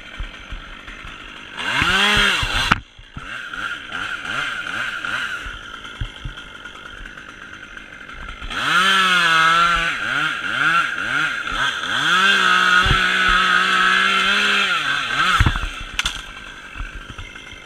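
Two-stroke chainsaw revved briefly and idling, then held at full throttle for about seven seconds, its pitch dipping and recovering as it cuts into holly wood, before dropping back to idle.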